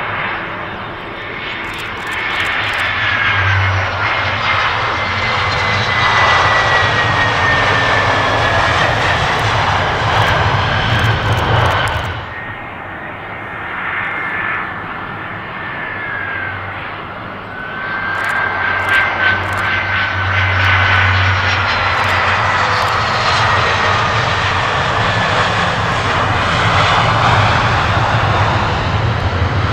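Two Airbus A320-family jetliners flying low on final approach, one after the other, with a sudden cut between them about 12 seconds in. Each plane's turbofan engines give a steady rumble with a high whine that slowly falls in pitch as it passes. The second plane is an Airbus A319.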